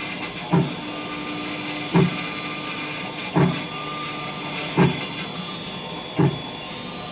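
Small CNC chip-engraving machine running its high-speed spindle with a steady hiss, with a low thump about every second and a half, during a final fine milling pass that grinds down an iPhone NAND storage chip.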